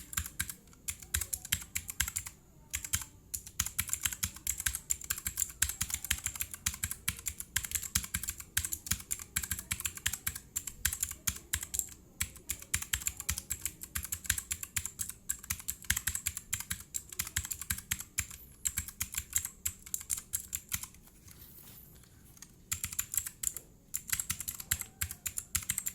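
Typing on a Digital Alliance Mechanical 6 RGB keyboard with clicky blue switches and no dampening: a dense, fast run of sharp key clicks, with a short pause about twenty seconds in.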